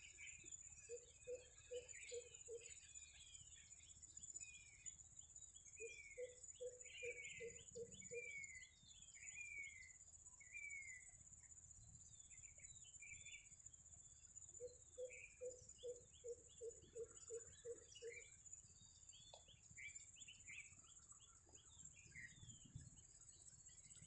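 Faint birdsong: one bird gives several runs of quick, low hooting notes, about five a second, while other birds answer with short calls that slide downward. A steady, high insect drone runs underneath.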